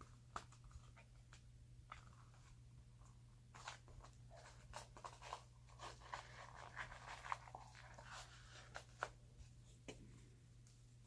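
Faint rustling and scattered clicks of small objects being handled and sorted through, busiest from about four to nine seconds in, over a low steady hum.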